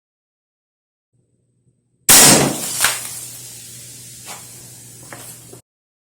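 Crosman F4 nitro-piston break-barrel air rifle firing a single shot: a loud, sharp crack about two seconds in that dies away quickly. A second, smaller sharp knock follows under a second later.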